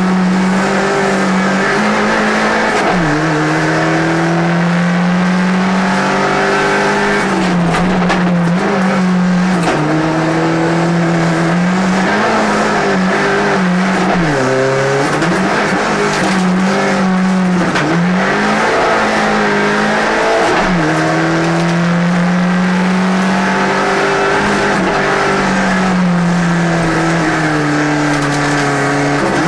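Race car engine heard from inside the cabin, driven hard up a hillclimb: the engine note climbs steadily and drops sharply at each gear change, over and over. About halfway through it sinks lower for a moment before climbing again.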